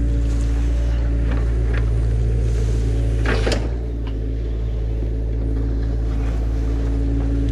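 Mini excavator's diesel engine running steadily with a deep hum. A brief sharp noise cuts in about three and a half seconds in.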